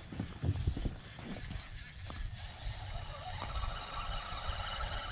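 Fishing gear being handled while a hooked fish is reeled in: low knocks and thuds with a few sharp clicks, then a faint steady whine from about three and a half seconds in.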